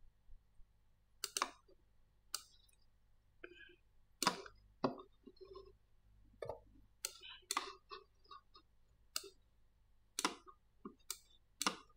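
Computer mouse buttons and keyboard keys clicking: about a dozen sharp clicks at irregular intervals.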